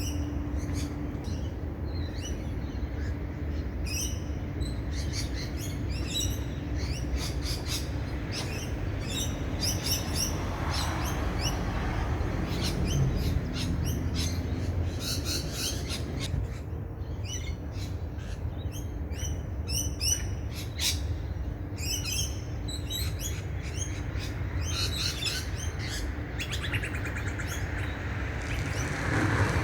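Small birds chirping and singing, many short quick calls overlapping throughout, over a steady low rumble.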